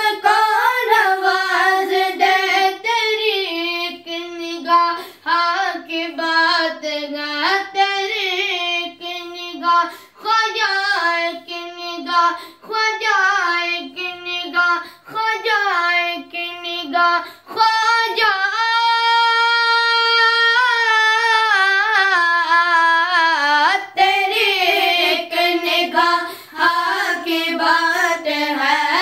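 Group of boys singing a manqabat (Sufi devotional song in praise of a saint) together in unison, voices alone without instruments. The melody bends and breaks phrase by phrase, with one long held note about eighteen seconds in.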